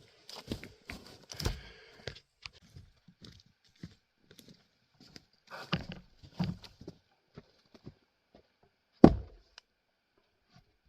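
Split grand fir firewood being tossed into a pickup bed: scattered knocks and thunks of wood landing, the loudest a single sharp thunk about nine seconds in.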